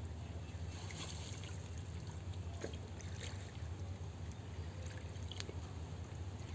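Wet cast net being hauled in through shallow pond water, with faint trickling and small splashes and clicks. A steady low hum runs underneath.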